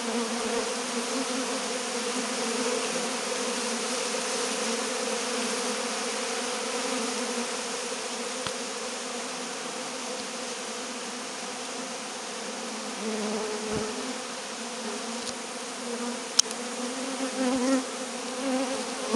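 Many honey bees buzzing around a hive: a steady, continuous drone that swells a little now and then as bees fly close. One sharp click sounds near the end.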